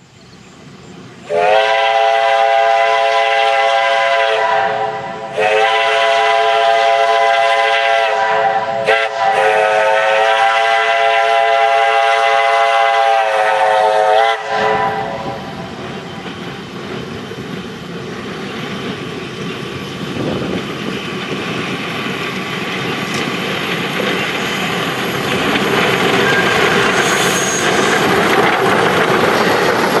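Shay geared steam locomotive sounding its steam whistle in three long blasts, the last one longest. The whistle then stops and the locomotive and its train of cabooses roll closer and pass, the running noise and wheels on the rails growing louder.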